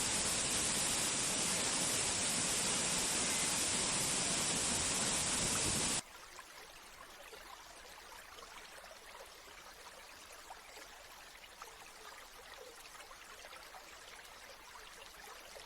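Steady rushing water that cuts off suddenly about six seconds in, giving way to a much quieter, lighter trickle of water.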